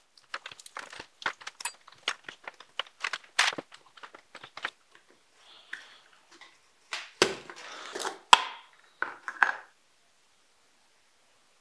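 Workbench handling sounds: a run of quick, sharp clicks and taps of small plastic parts, then a plastic tub lid thumped and pried off with a loud snap, and a metal spoon scraping out thick silicone rubber.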